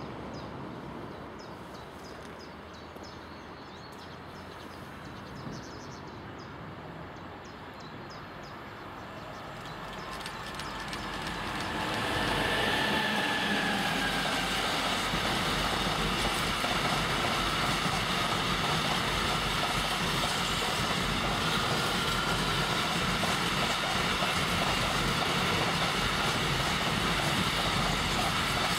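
Container freight train rolling past, wagon after wagon, with a steady rumbling noise of wheels on the track. It grows much louder about ten to twelve seconds in as the wagons pass close, then holds even, with a faint high tone running through it.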